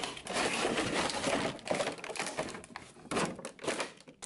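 Cardboard toy box and clear plastic packaging tray being opened and handled: steady crinkling and crackling of plastic with many small clicks, pausing briefly near the end.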